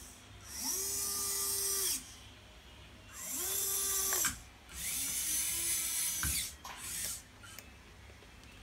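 Electric hydraulic pump of a 1/14-scale RC excavator whining in three runs of about a second each, plus a brief blip near the end. Each run rises in pitch as the pump spins up under load and falls as it stops, while the boom, arm and bucket are moved.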